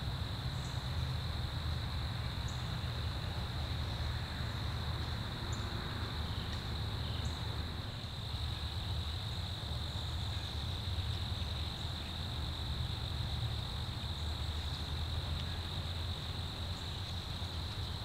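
Steady chorus of insects such as crickets, a continuous high shrill that does not let up, over a low rumble.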